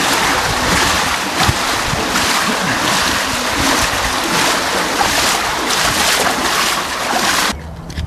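Steady loud rushing of water flowing out of a concrete culvert pipe, which stops abruptly near the end.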